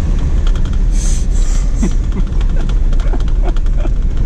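In-cabin sound of a Jeep Wrangler Rubicon driving slowly over a rough dirt track: a steady low rumble from the drivetrain and tyres, with frequent short clicks and knocks as the vehicle rattles over the bumps.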